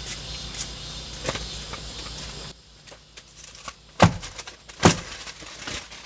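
Small handling clicks, then two sharp knocks about a second apart.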